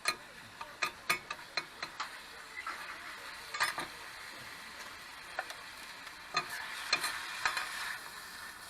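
Meat sizzling steadily as it grills, with irregular sharp clicks and taps from the cooking being worked.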